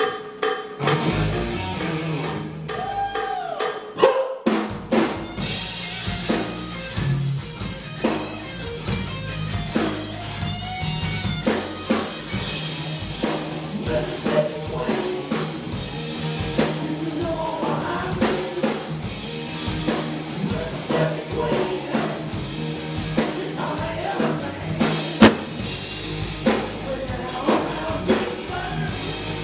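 Live rock band playing electric guitars and a drum kit. Guitar notes open alone, then the drums come in with a burst of hits about four seconds in, and the band plays on together at a steady beat.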